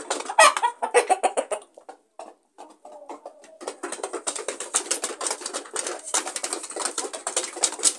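Chickens pecking at feed: rapid, irregular clicking and tapping of beaks, dropping away briefly about two seconds in.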